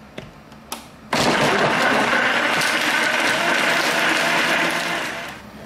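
Countertop blender running at full speed for about four seconds, blending frozen banana, yam, nuts and milk into a smoothie, then winding down near the end. A couple of light clicks come just before the motor starts.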